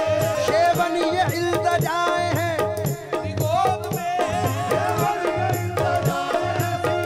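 Qawwali music: held keyboard notes and a sung melody over a steady hand-drum beat on the dholak.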